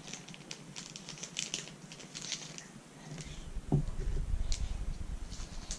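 Crinkling of a plastic candy bag of marshmallows being handled and squeezed. About two-thirds in comes a thump with a low rumble, the loudest sound, as things on the table are knocked and moved.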